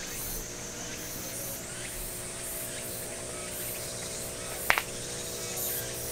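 Steady hiss of background ambience with a faint hum, and one sharp click about four and a half seconds in.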